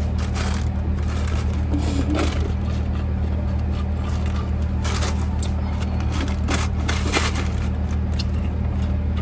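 Scattered crunching and crackling of eating fast food and handling its packaging, a few short sounds every second or so, over a steady low hum inside the car.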